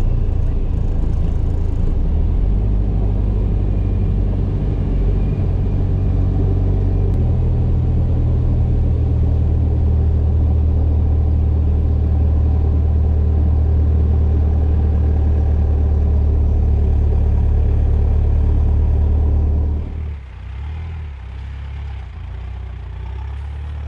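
Jeep TJ with a Cummins R2.8 four-cylinder turbo-diesel swap driving along, a loud steady low engine and road drone. The drone shifts in pitch about a third of the way in and drops noticeably in level near the end.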